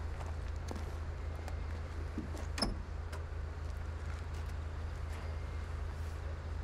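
Steady low rumble with one sharp knock about two and a half seconds in.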